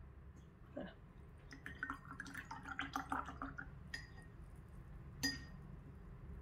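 Paintbrush rinsed in a glass water jar: a run of light clinks of the brush against the glass with a little water movement, then two single clinks.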